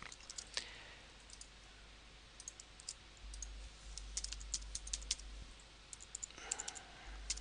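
Typing on a computer keyboard: faint, irregular keystroke clicks, some in quick runs.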